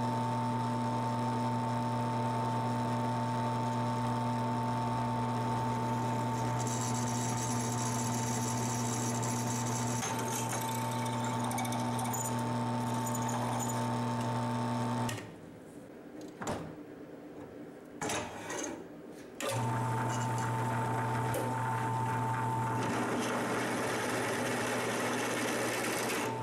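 Drill press motor running steadily as a 5/16-inch twist drill cuts through thick mild steel with cutting oil. Midway the motor sound drops away for about four seconds with a few light knocks, then the press runs again.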